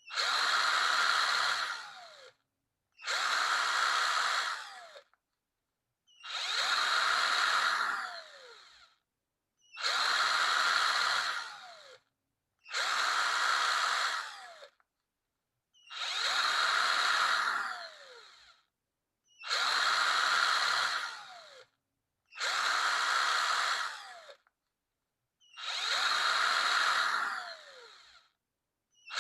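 Power drill run in short bursts of about two seconds, nine times, about every three seconds. The motor whines up on each trigger pull and winds down with a falling whine when the trigger is let go.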